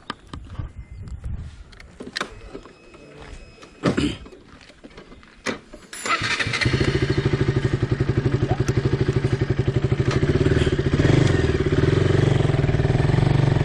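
A few clicks and knocks, then about six seconds in a KTM RC's single-cylinder motorcycle engine starts and settles into a steady, evenly pulsing idle.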